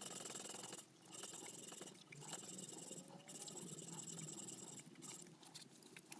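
Hand abrading strokes rasping on a steel screwdriver blade: five scraping strokes, each about a second long, with short pauses between them.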